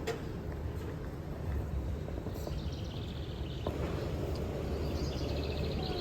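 Steady outdoor background noise with a low rumble, broken by two short runs of rapid high bird chirps, one about halfway through and one near the end.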